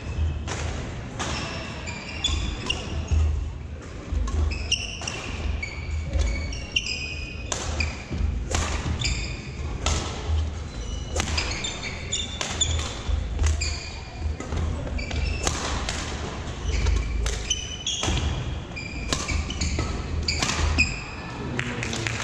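Badminton singles rally: repeated sharp smacks of rackets striking the shuttlecock, with court shoes squeaking and thudding on a hardwood gym floor.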